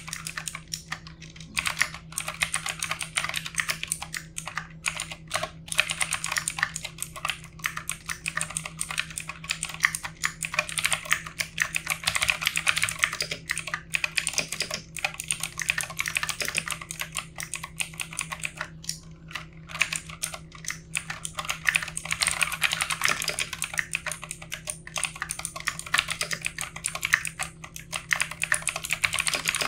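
Fast typing on a backlit mechanical keyboard: a dense, irregular run of key clicks, broken by short pauses about a second in and again midway.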